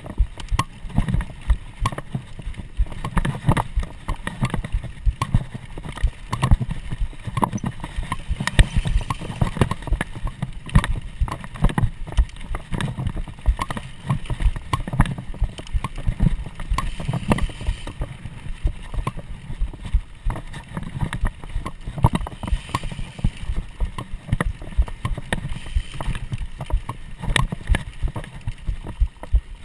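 Mountain bike rattling and clattering over rough dirt singletrack, picked up by a camera strapped to the rider: a dense, irregular run of knocks from tyres, chain and frame over a steady low rumble.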